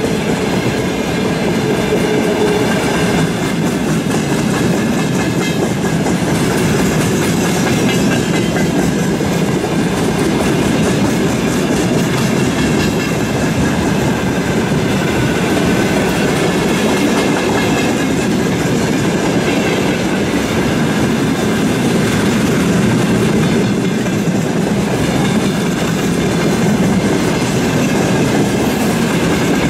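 Freight train of railway tank cars rolling past at speed: a steady loud rumble of steel wheels on the rails, with a rapid, continuous clickety-clack as the wheels pass over the rail joints.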